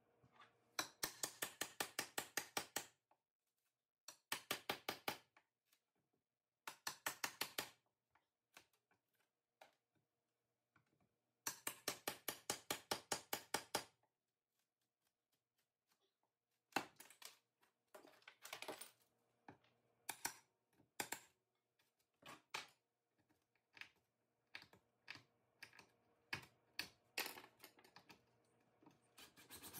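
Hand tool working at a tiled countertop: several runs of rapid, evenly spaced clicking, each a second or two long, then after a pause scattered single clicks and taps.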